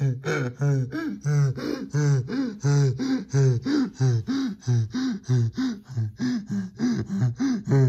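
Donkey braying: a long string of hee-haws in a steady rhythm, wheezing in-breaths alternating with honking out-breaths.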